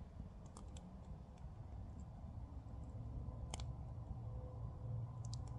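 Campfire crackling: a few sharp pops scattered over a low, steady rumble.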